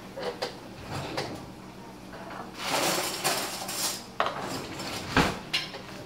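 Metal kitchen utensils clattering and clinking as someone rummages through them for a fork: scattered sharp clicks, a rattling stretch in the middle, and a heavier knock about five seconds in.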